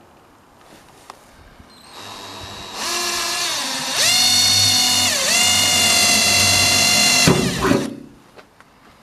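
Energer cordless drill driving a small bit into the metal body panel of a van. The motor whine starts about two seconds in and gets louder in two steps. Its pitch sags twice as the bit bites, and it winds down near the end.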